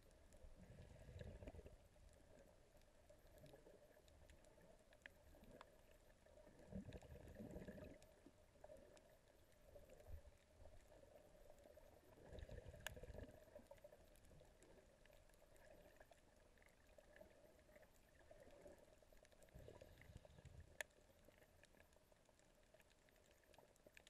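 Near silence recorded underwater by a GoPro in its housing: a faint steady hum with a few soft muffled thumps and a couple of sharp faint clicks.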